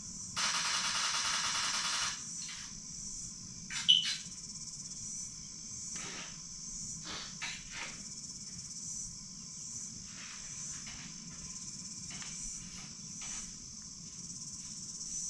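Steady high-pitched chirring of crickets. About half a second in comes a loud hiss lasting under two seconds, then a sharp click near four seconds and a few faint clicks of handling.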